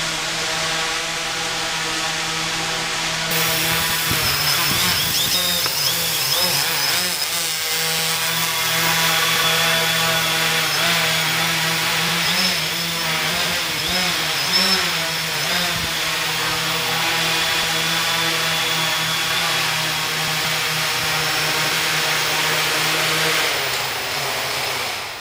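Quadrotor's electric motors and propellers buzzing in flight, the pitch wavering as it manoeuvres; near the end the buzz falls away as it lands.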